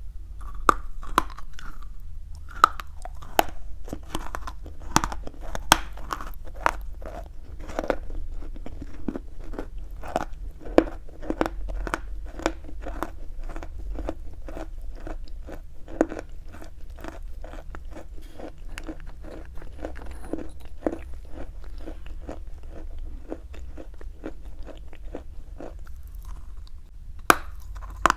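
Close-miked chewing of chalk: a continuous run of sharp, crisp crunches, with a cluster of louder crunches near the end.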